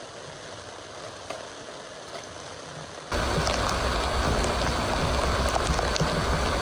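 Steady rain falling; about three seconds in, a sudden much louder rush of water as pooled rainwater is tipped off the rain cover and pours down.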